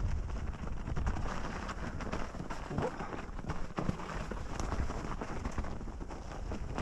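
Kona Process 134 DL full-suspension mountain bike riding down a snowy trail: low wind rumble on the microphone, tyres over snow, and frequent clicks and rattles from the bike.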